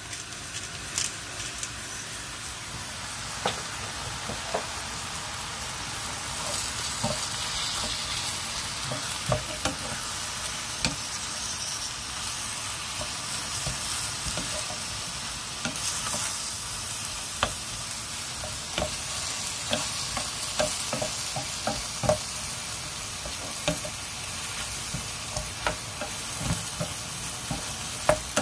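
Fish cake, onion and chili peppers sizzling in a frying pan as they are stir-fried with a wooden spatula: a steady frying hiss with frequent short knocks and scrapes of the spatula against the pan.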